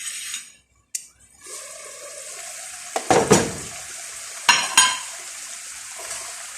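Food sizzling in a hot frying pan, starting about one and a half seconds in, with a metal utensil clanking and scraping against the pan in two spells near the middle.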